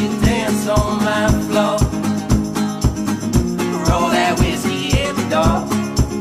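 Background song with a singing voice over a steady drum beat.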